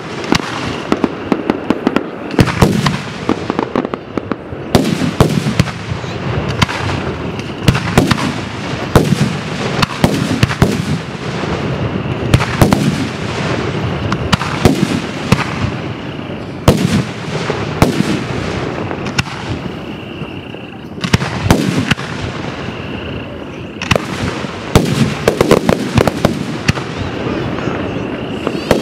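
Aerial fireworks shells bursting in quick succession: many sharp booms and cracks with a rumbling echo between them.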